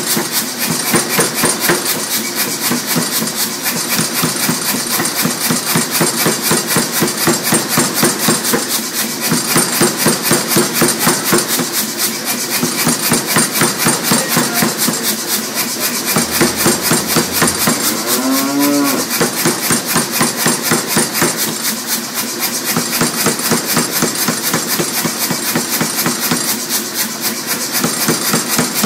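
Rapid, steady hammering on hot iron over an anvil, about five blows a second, with the anvil ringing under the blows, as the pieces are forge-welded. About two-thirds of the way in, a short wavering call, like a cow's moo, sounds over the hammering.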